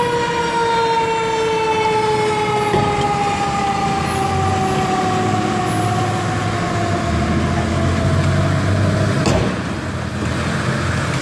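Fire truck siren winding down, its single tone falling slowly and steadily in pitch, over the low rumble of the truck's engine. A sharp click about nine seconds in.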